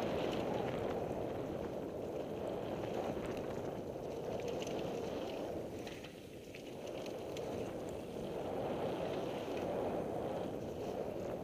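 Wind rushing over a helmet camera's microphone as a Devinci Wilson downhill mountain bike descends a dirt trail at speed, with faint clicks and rattles from the bike and the trail. The rush eases briefly about six seconds in, then builds again.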